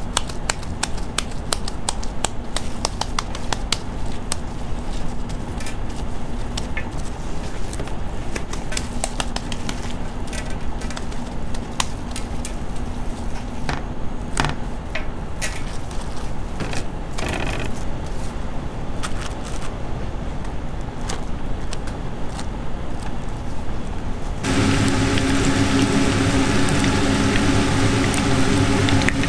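Raw ground-meat patties being shaped and laid on a foil-lined tray by gloved hands: many small sticky clicks and pats over a low steady rumble. About 24 s in, this gives way to a louder, steady sizzle of a meat patty frying in hot oil.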